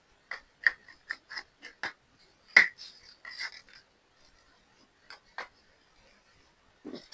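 Small hard objects being handled: a quick run of light clicks and taps, a louder knock about two and a half seconds in, a short rustle, then two more clicks.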